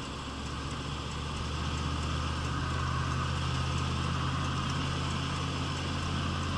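Car engine running with a steady low hum under tyre and road noise, heard from inside the cabin while merging onto a freeway; it gets a little louder about two seconds in, then holds steady.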